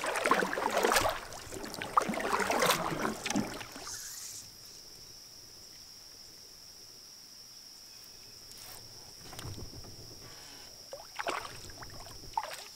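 Canoe paddle strokes splashing in the water, with sharp knocks, for about the first four seconds; then it goes quieter, with a steady high-pitched whine running on behind and a few short knocks near the end.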